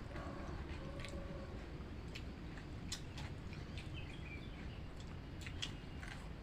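Close-up eating sounds: chewing with scattered sharp mouth clicks and smacks over a steady low background hum.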